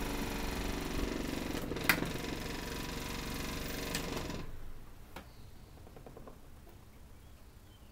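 Crosley 9-inch two-speed desk fan, model 2154, with one blade broken, running with a steady motor hum and blade whoosh. There is a sharp click about two seconds in. About four seconds in its rotary switch clicks off and the motor sound drops away, leaving the blades coasting down faintly.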